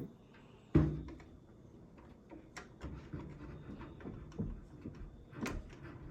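Handling noises from putting a computer together: a sharp knock about a second in, then a run of small clicks and taps, and another knock near the end.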